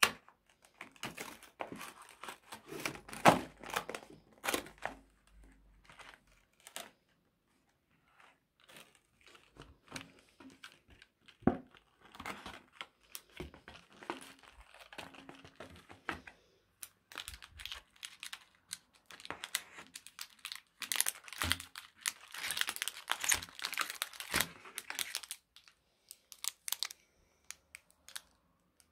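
A cardboard snack box being torn open and handled, with sharp tearing and tapping rustles in the first few seconds. Later a foil-wrapped Kinder Cards packet crinkles in the hands, densest about two-thirds of the way through.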